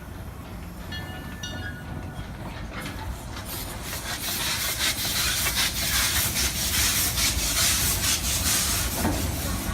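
Cedar Point & Lake Erie Railroad steam train passing close by. A bell rings twice in the first two seconds, then steam hiss and the clatter of wheels grow louder over several seconds and stay loud.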